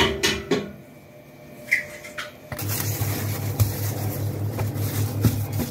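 A few knocks and a click as hands work dough on the table. After a cut, clear plastic film rustles as it is handled, over a steady low pulsing hum.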